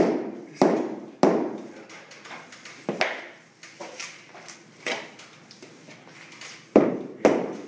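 Hammer strikes on hardwood flooring: three sharp blows about half a second apart, a few lighter taps in the middle, then two more strong blows near the end.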